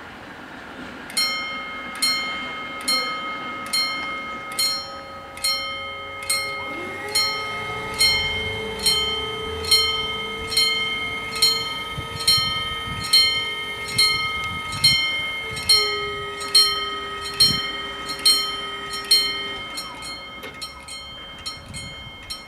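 Electric level-crossing bells striking at a steady pace of a little over once a second as the crossing closes, each strike ringing on. From about seven seconds in, a steady low motor hum joins them as the barrier booms lower. The hum stops shortly before the bells fall away near the end.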